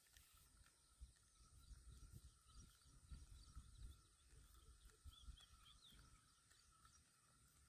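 Near silence: faint outdoor ambience with a steady high hum, a few faint bird chirps about five seconds in, and soft low rumbles.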